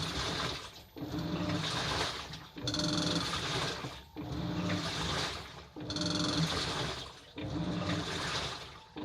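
Hitachi washing machine running its wash, the motor turning the tub in strokes about every one and a half seconds with a whine and water sloshing, along with the rattling noise the owner describes as karakara. The rattle turned out to be a 10-yen coin lodged inside the machine.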